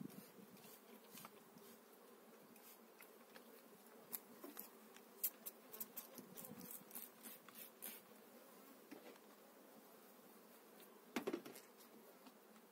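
Honeybees buzzing faintly around an open hive, with a run of short spritzes from a hand-held spray bottle between about four and eight seconds in and another group just past eleven seconds.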